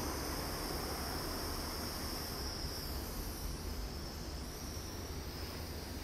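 Steady hiss of a butane soldering iron burning as it heats up, easing slightly about halfway through.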